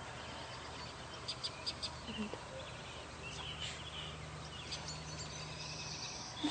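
Faint outdoor ambience: scattered short bird chirps over a low, steady background hum.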